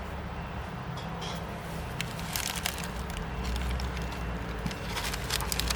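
Steady low rumble with irregular crackling and crinkling clicks, from about two seconds in.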